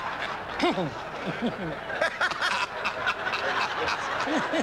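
Audience laughing, with a few single laughs standing out over the general laughter in the first couple of seconds.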